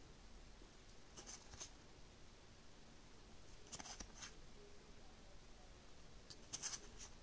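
Faint swishes of stiff game cards being slid off one stack onto another, three times about two and a half seconds apart, each a couple of quick strokes; the last is the loudest.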